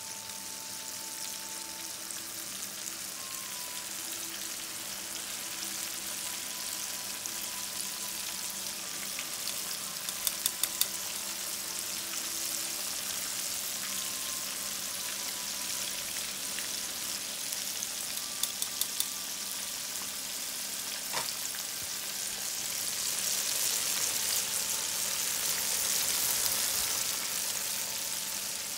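Cornmeal-breaded fish fillets frying in shallow oil in a skillet on high heat: a steady sizzle that grows louder near the end, with two short runs of sharp pops from the oil.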